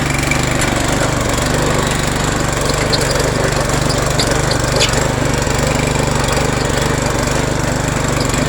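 Legend Force rear-tine rototiller's small gas engine running steadily under load while the tines churn through soil, with a few faint clicks around the middle. There is no belt squeal: the drive belt has been adjusted.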